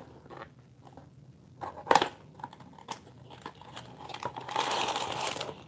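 A small cardboard toy box being opened by hand: scattered light clicks and scrapes of cardboard, with one sharp snap about two seconds in. Near the end, about a second of crinkling as the plastic bag of brick parts is handled.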